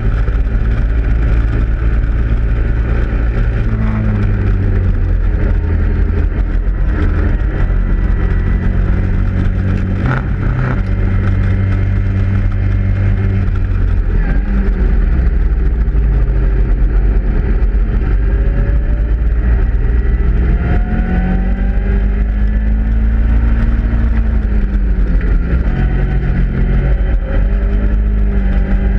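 A Caterham Roadsport race car's Ford Sigma four-cylinder engine running hard, heard from on board in the open cockpit. Its pitch climbs through the gears and drops away several times as the driver shifts and brakes for corners.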